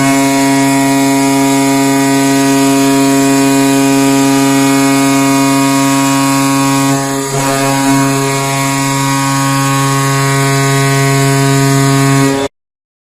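Goal horn sounding one long, steady blast for about twelve seconds, then cutting off suddenly near the end.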